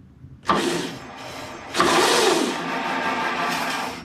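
Razor RSF650 mini electric motorcycle's upgraded 1800 W electric motor spinning the rear wheel under throttle on a first test run: a short burst about half a second in, then a longer, louder run from nearly two seconds in, its pitch rising and falling, that cuts off suddenly.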